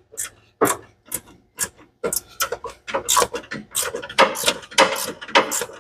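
Ratchet wrench clicking as it turns a 10 mm bolt: a few separate clicks, then from about two seconds in a quicker, steady run of about four or five clicks a second.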